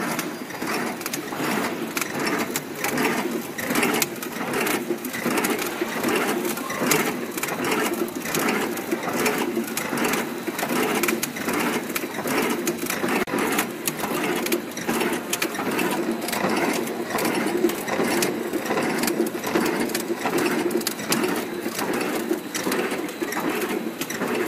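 Automatic play dough extruding and packing machine running steadily, its mechanism clicking in a rapid, even rhythm.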